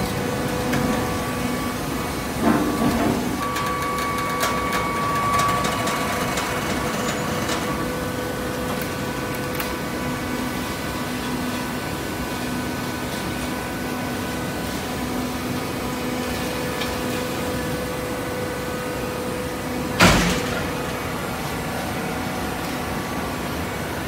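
Steady hum of a fully automatic horizontal hydraulic baler running. A few knocks come about two and a half seconds in, and a single loud knock about twenty seconds in.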